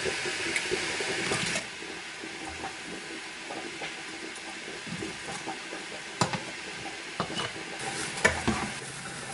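A pot of beans simmering with a steady hiss, which drops away after about a second and a half. Then a metal ladle scoops the beans and they are poured through a plastic funnel into glass canning jars, with a few sharp clinks of utensil on pot or jar, the loudest about six and eight seconds in.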